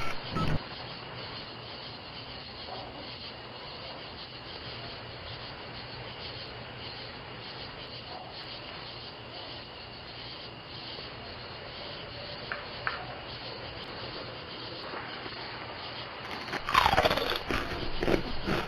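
Steady background hiss picked up by a doorbell camera's microphone, with two faint knocks about twelve seconds in. Near the end comes a louder cluster of short, sharp sounds, one of them falling in pitch.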